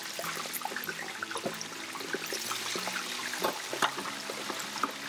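Hot oil in a propane disc cooker sizzling and crackling as cold, pre-smoked chicken wings are lowered into it, with a few louder pops in the second half.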